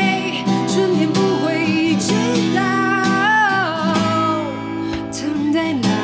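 A woman singing a Mandarin ballad with acoustic guitar accompaniment; her voice glides between held notes over the guitar.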